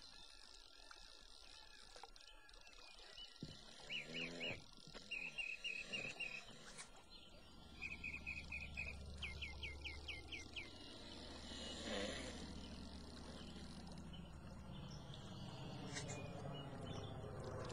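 Quiet lakeside ambience with a bird chirping in several short trilled runs through the middle. A low drone of an approaching twin-engine propeller aircraft comes in and grows steadily louder toward the end.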